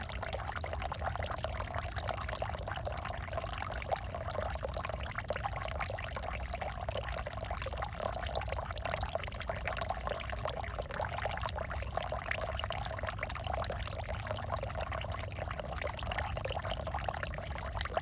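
Water running and splashing steadily, with a constant low hum beneath it.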